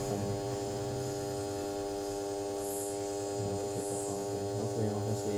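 Steady electrical mains hum, a buzz of many even tones, with two brief faint hisses near the middle.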